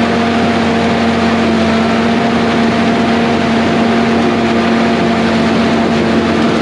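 Bulldozer's diesel engine running at a steady, even speed.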